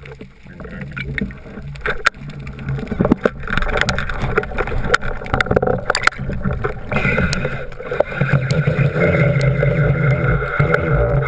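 Underwater noise of a spearfisher moving through the water: water rushing and bubbling over the camera housing with scattered sharp knocks, growing louder and denser about two-thirds of the way in.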